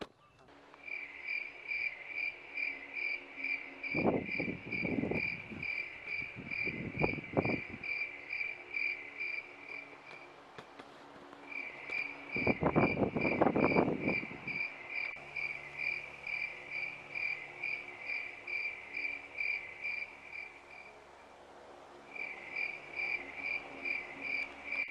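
A cricket chirping steadily, about two chirps a second, pausing briefly twice. Over it, sleepers snore in a few loud, rough breaths: twice a few seconds in and once, longest, around the middle.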